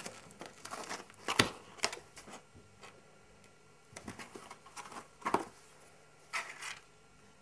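A kitten scrabbling and knocking about inside a cardboard box: scattered scratches and taps with quiet gaps between them, the sharpest knock about a second and a half in and a longer rustling scuff near the end.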